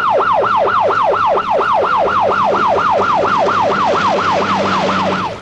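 Ambulance siren in fast yelp mode, its pitch sweeping up and down about four times a second; it cuts off near the end.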